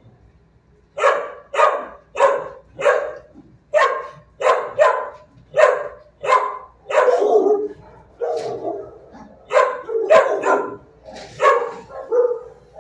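A dog barking over and over, a steady run of single barks about one to two a second, starting about a second in.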